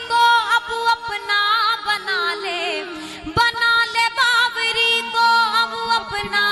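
Instrumental interlude of devotional bhajan music: an ornamented melody with wavering notes over a steady held drone, and a single drum stroke about three and a half seconds in.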